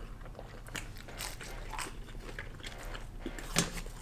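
A person chewing and biting McDonald's chicken nuggets, a scatter of small crunches and mouth clicks.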